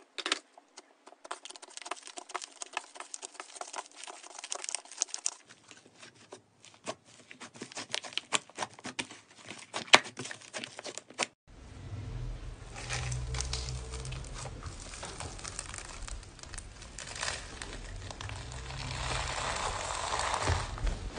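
Slime being squeezed and played with by hand, with many small crackling clicks and pops. About halfway through the sound cuts to a steadier squishing and rustling with a low rumble.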